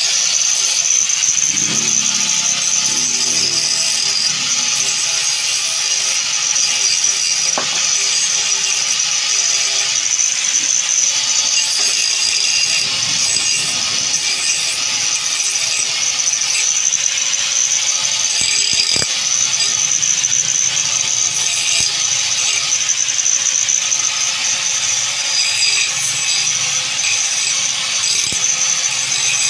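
Handheld angle grinder running steadily with its disc grinding off excess metal at a motorcycle wheel's hub, a constant high whine with a rasp of disc on metal.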